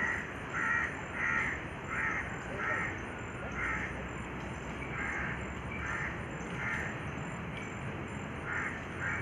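A crow cawing over and over, about ten short harsh calls spaced one to two a second.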